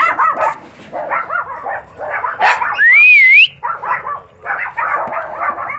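Chihuahua puppies barking in a rapid run of short, high yips. About three seconds in comes one loud, drawn-out whine that rises, dips and rises again.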